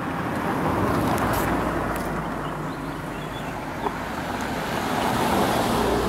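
A car driving uphill, its engine running with steady tyre and wind noise that swells and eases.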